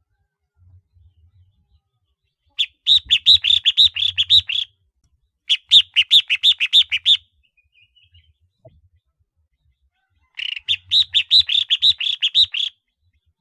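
Collared finchbill calling: three bursts of rapid repeated notes, about six a second, each burst roughly two seconds long, with a longer gap before the third.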